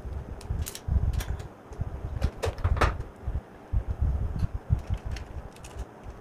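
Handling noise of hand wiring: a red wire being stripped and twisted and a plastic switch board being moved about on a wooden table, with dull knocks throughout and a few sharp clicks.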